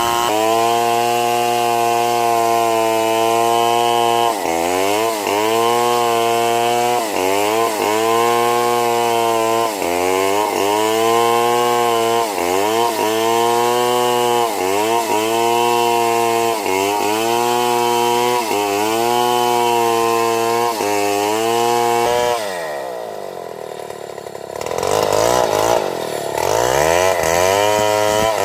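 Two-stroke chainsaw running at high revs while cutting wood, its engine speed dipping and recovering about every one and a half seconds. About 22 seconds in it drops to idle for a couple of seconds, then revs back up to full speed.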